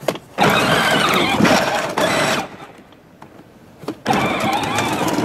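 John Deere Gator children's ride-on toy's electric drive motors and gearbox whining as it drives. It stops about two and a half seconds in and starts again about a second and a half later, with a click at each start.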